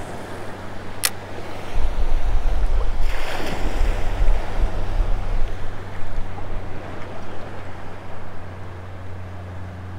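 Shallow surf washing and water sloshing, with wind gusting on the microphone as a heavy low rumble from about two to five and a half seconds in. A single sharp click comes about a second in.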